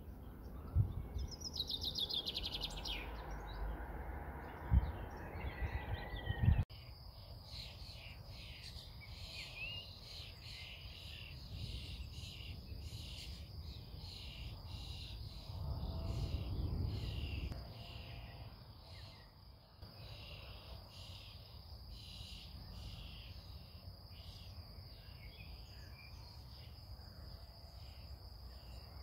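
Birds chirping and crickets trilling steadily outdoors, with a low rumble of distant thunder for about two seconds midway. A few low thumps come in the first seconds.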